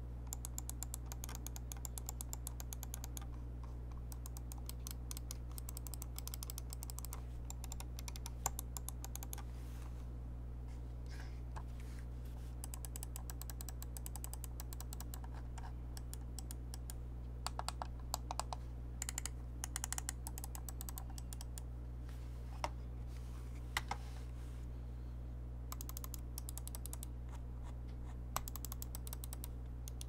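Budget gaming mice's button switches clicking in a sound test: runs of rapid clicks alternating with single, louder clicks, over a low steady hum.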